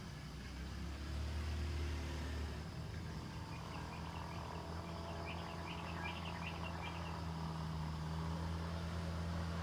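Steady low rumble of outdoor background noise, with a cluster of faint high chirps about five seconds in.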